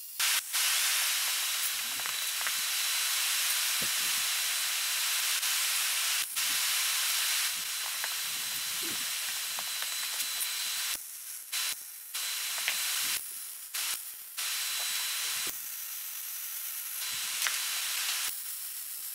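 Electric welding arc hissing and crackling as a steel support tube is welded between the steering rack mounts. The first run goes unbroken for about ten seconds, followed by several short runs with brief stops.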